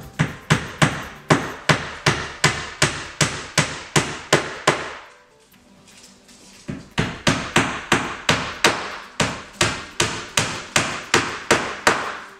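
Hammer driving 1-inch nails by hand into two stacked wooden countertop panels to bind them together. Two runs of steady blows, about three a second, with a short pause near the middle.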